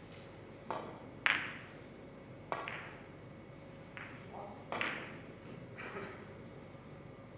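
Carom billiard balls in a three-cushion shot: a string of six sharp clacks with short ringing tails spread over about five seconds, the loudest about a second in, as the cue ball is struck and strikes the cushions and the other balls.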